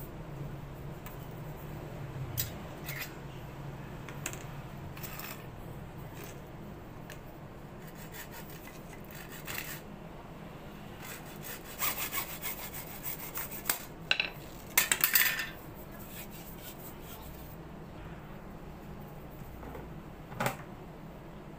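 Hacksaw cutting PVC pipe: runs of quick sawing strokes a little past the middle, the loudest just after, then a single knock near the end.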